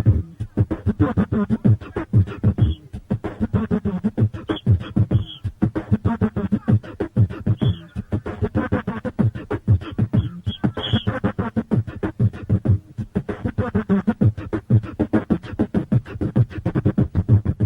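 Human beatbox performing a solo beat: a steady, rapid rhythm of deep kick-drum thumps and sharp snare-like clicks made with the mouth, on a muffled live recording.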